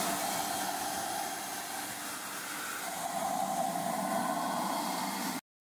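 Pressure washer jet spraying water onto a VW AP engine cylinder head, a loud steady hiss of spray that cuts off suddenly near the end.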